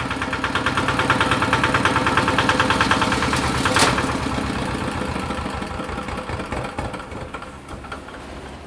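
Small single-cylinder diesel engine running with a fast, even knocking beat. Just before the middle there is a sharp click, and the engine then slows and fades away as it is shut down.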